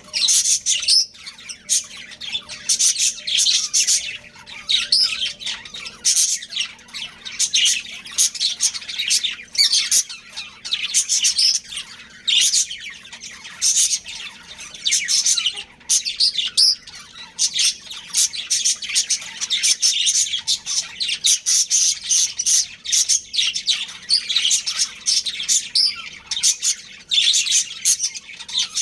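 Budgerigars chirping, squawking and chattering continuously in a dense, rapid stream of high calls.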